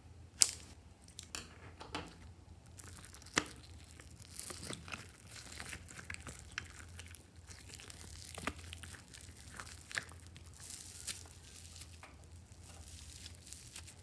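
Floam (foam-bead) slime being cut with scissors and pulled apart by hand, its beads crackling and crunching, with a sharp snip about half a second in and a few more sharp clicks later.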